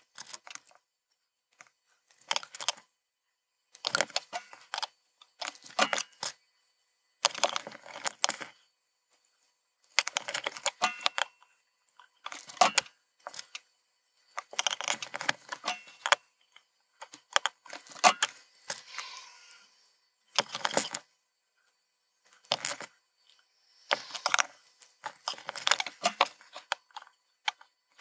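Clusters of small hard clicks and rattles, one every second or two: plastic-bodied RGB LEDs and their wire legs clicking against each other and against the circuit board as they are picked out of a dish and handled.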